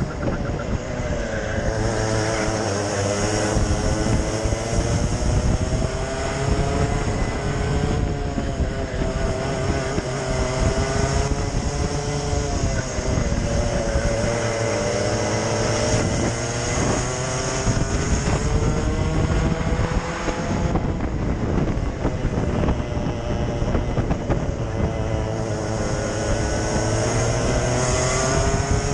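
Racing kart engine heard from on board while lapping, its revs repeatedly climbing along the straights and dropping off into the corners, over a constant rush of wind noise.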